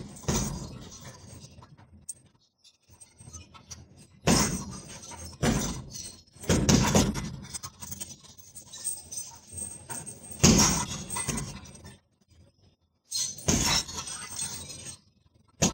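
Punches landing on a heavy punching bag, each thud followed by the jingle and clink of the bag's hanging chains. The hits come irregularly, singly or in quick pairs, with pauses of a second or more between them.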